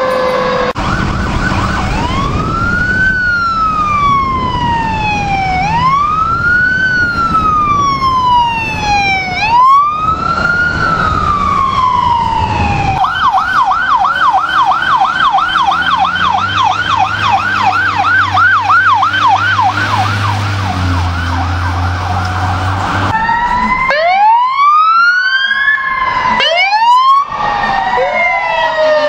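Fire truck sirens. First a slow electronic wail rising and falling about every three and a half seconds. From about 13 seconds in, a fast yelp of about three sweeps a second over a low steady drone. Near the end come steep rising siren sweeps.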